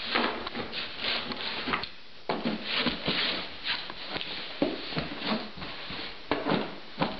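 Cardboard box scraping and bumping as an Old English Sheepdog shoves it along a hardwood floor with its nose, in irregular scuffs with a short pause about two seconds in.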